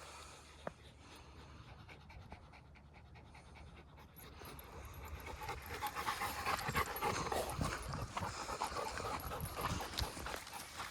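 Dog panting hard, louder and closer from about halfway in.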